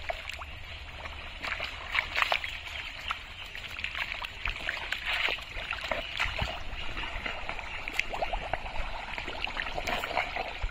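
Thick, watery pond mud squelching and splashing irregularly as a person wades through it and digs into it with his hands.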